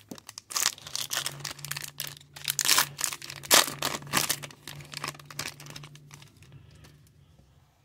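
Foil wrapper of an O-Pee-Chee hockey card pack crinkling and crackling as the torn pack is peeled open and the cards are slid out. The rustling dies away about six seconds in.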